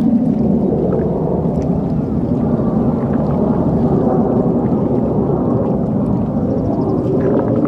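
Distant jet aircraft noise from the Red Arrows' BAE Hawk T1 jets, heard as a steady, low, wavering rumble.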